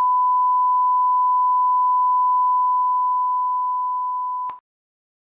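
Television colour-bar test tone: one steady, high-pitched beep held for about four and a half seconds, then cut off with a small click into silence.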